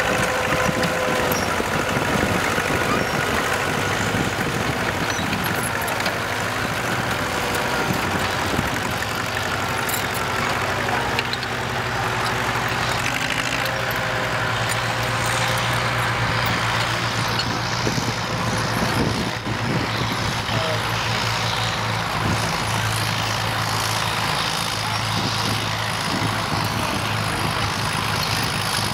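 Vintage Caterpillar diesel crawler tractor running steadily under load, with a constant low engine note as it drags a levelling blade across rough ground. Other old diesel machinery runs in the background.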